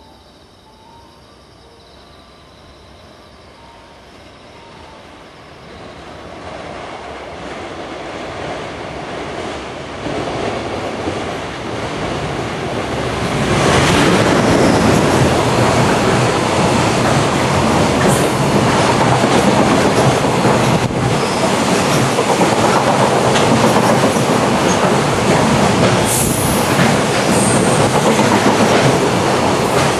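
Electric-locomotive-hauled container freight train running through a station without stopping: it grows steadily louder as it approaches, the locomotive passes close about a third of the way in, and the container wagons then rumble and clatter over the rails at a steady loud level.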